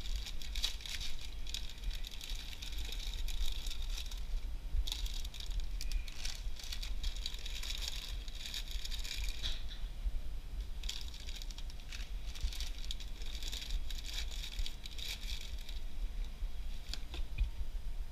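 Crinkly plastic snack packaging being handled in bursts with small rattles and clicks, over a low steady hum.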